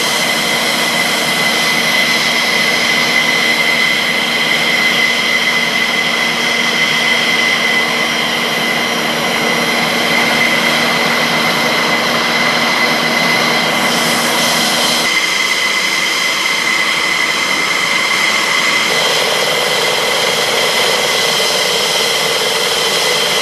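Loud, steady high-pitched whine of a jet engine running on the ground, several fixed tones over a hiss. The sound shifts abruptly about 15 seconds in and again near 19 seconds.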